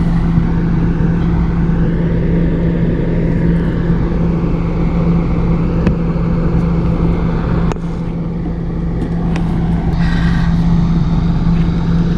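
A steady mechanical hum of an engine or motor running, with a few faint light clicks.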